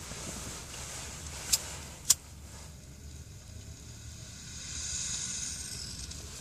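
Two sharp clicks of a pocket lighter being struck, about a second and a half and two seconds in, then a hiss as air is drawn through a glass pipe with the flame held to the bowl, swelling and fading around five seconds in.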